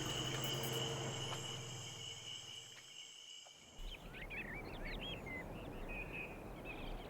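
Steady, shrill insect trilling with a low hum beneath, fading out about three seconds in. It gives way to short, quick bird chirps and twitters over a low hum.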